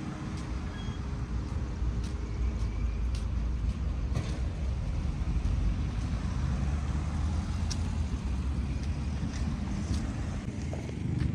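A car driving along a road: a steady low rumble of engine and tyre noise.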